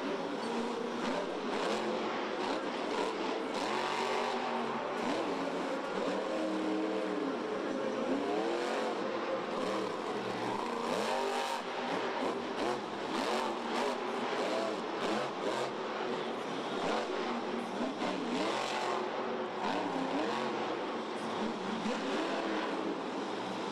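Monster truck engine revving hard and again and again, its pitch rising and falling as the truck accelerates and backs off between jumps, with short sharp noises scattered through the run.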